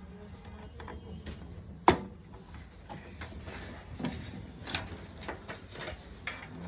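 Scattered small plastic clicks and knocks of connectors and cables being handled, with one sharp click about two seconds in, as a front-panel USB header cable is fitted onto a desktop motherboard.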